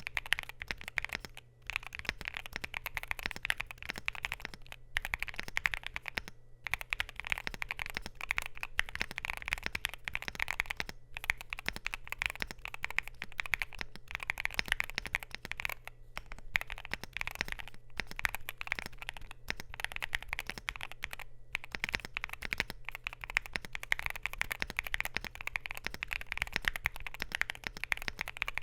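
Continuous typing on a Luminkey LK65 mechanical keyboard with Gateron Sylva switches, a polycarbonate plate and PBT Cherry-profile keycaps: a fast, even run of key clacks, broken by short pauses about every five seconds.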